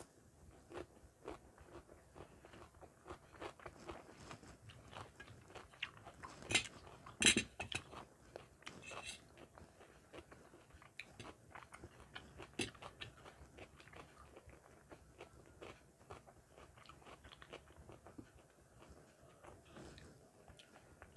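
Close-miked eating: crisp bites and chewing of raw salad slices. There are many small crunchy clicks, and a few loud crunches about six to nine seconds in.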